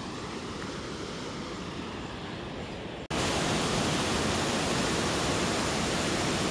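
Steady rushing outdoor noise with no distinct events; about three seconds in it jumps abruptly louder and brighter, at a cut between shots.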